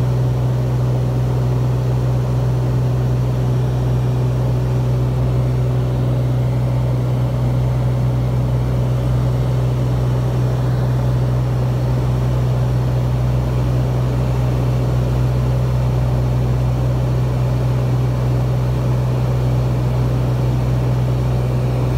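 Cessna P210N's six-cylinder turbocharged Continental engine and propeller droning steadily in cruise at 2500 RPM, heard from inside the cabin as a loud, constant low drone.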